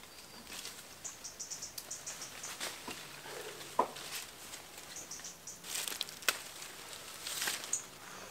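Leaves and branches of a quince tree rustling as the fruit is picked by hand, with scattered small crackles and two sharper snaps about four and six seconds in.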